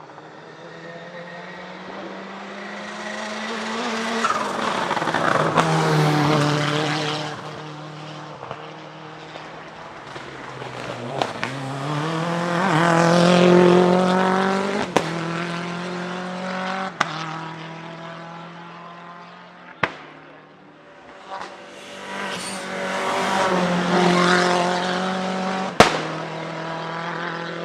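Small turbocharged hillclimb race car revving hard through the gears as it passes, three times in a row, each pass swelling and fading. Sharp cracks from the exhaust several times, the loudest near the end: the bangs of a misfiring anti-lag system.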